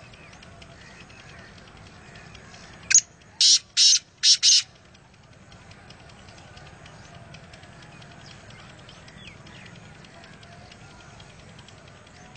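Black francolin calling once, a loud phrase of five quick high notes about three seconds in: the first short and rising, the rest longer, with the last two close together. Faint background chirping and a low steady rumble lie under it.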